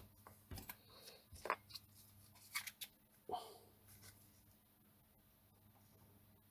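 A few faint clicks and light taps of small hand tools and a thin jumper wire being handled over a circuit board, spread through the first three seconds or so, then near silence with a faint low hum.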